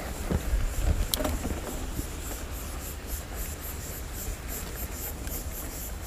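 Mountain bike ridden up a dry dirt singletrack: a steady low rumble of tyres on dirt and wind on the microphone, with a sharp click about a second in. A faint, fast, high-pitched pulsing runs over it.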